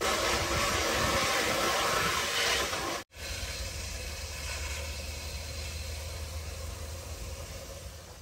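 Water from a garden hose running into a plastic bucket, a steady rushing hiss. After a brief break about three seconds in, it goes on quieter over a low rumble.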